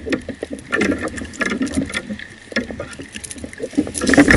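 Irregular tapping and rustling as a freshly caught mackerel is handled and unhooked from a lure, the fish wriggling in the hand; the handling gets louder near the end as the fish is lifted.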